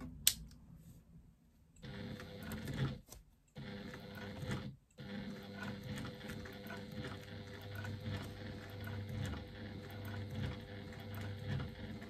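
Electric sewing machine stitching through a faux-leather strap connector, running steadily with a motor hum. It starts about two seconds in after a single click, stops briefly twice in the next few seconds, then runs on without a break.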